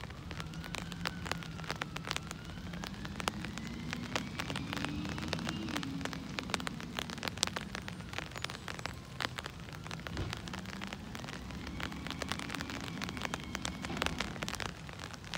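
Rain pattering, with many sharp close drop clicks, over the diesel engine of a Peterbilt 320 garbage truck running down the street, its pitch shifting a little as it works. A faint whine rises and falls through the first half.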